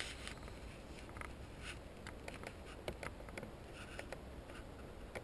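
Faint handling noise from a plastic welding helmet held in the hands: irregular light clicks and rustles.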